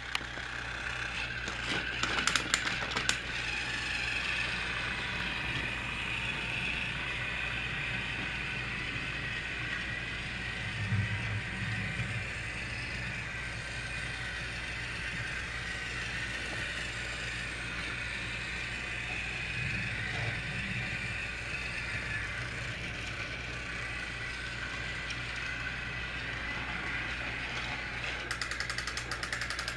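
Battery-powered TrackMaster toy train engine running along its track, its small motor and gears whirring steadily. A few clicks come a couple of seconds in, and a rapid even clicking starts near the end.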